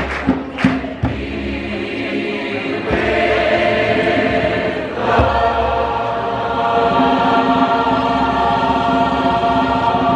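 Large choir singing sustained chords, with a few crisp consonant attacks in the first second. The chord changes about three seconds in and again about five seconds in, and the final chord is released near the end.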